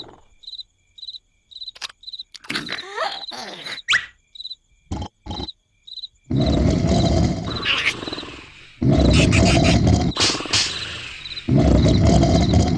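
Cartoon night-time crickets chirping, about two chirps a second, with a brief squeaky glide and a few soft taps. About six seconds in, loud snoring starts: long rough breaths that repeat about every two and a half seconds.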